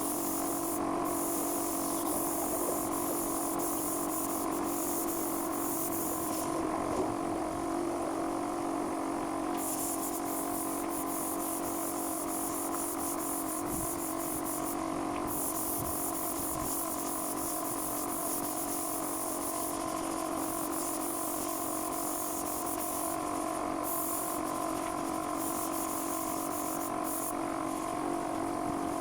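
Air compressor running steadily, with the high air hiss of a spray gun cutting in and out several times as sealer is sprayed.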